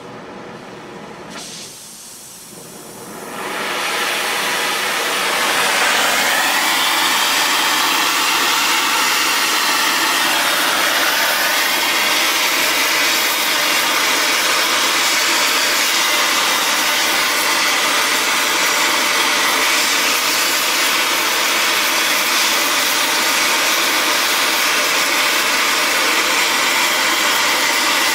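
Oxyacetylene torch flame hissing as it heats a small cast iron piston ring: the hiss starts about a second in, grows louder over the next few seconds, then holds steady.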